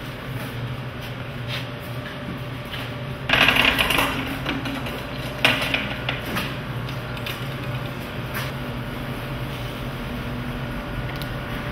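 Handling noises as a block of ice is moved on a chain-hoist frame: a short scrape about three seconds in, then a few light metallic clinks and knocks, over a steady low hum.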